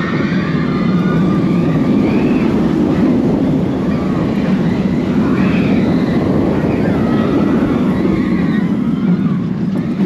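Steady rush of wind and wheel noise from a B&M wing coaster train running at speed, heard from the front row. Riders' voices rise and fall over it in shouts and screams.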